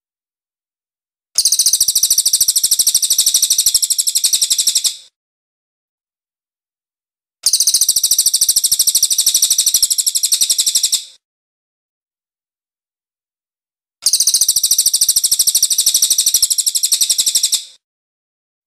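Cililin songbird singing a very rapid, high-pitched trill in three identical bursts of about three and a half seconds each, separated by pauses of about two and a half seconds: a masteran tutor recording with breaks, looped.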